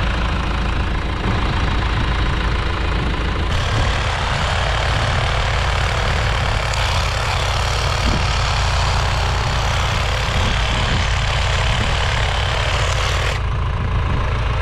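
An engine idling with a steady low rumble. A loud, even hiss joins it a few seconds in and cuts off suddenly near the end.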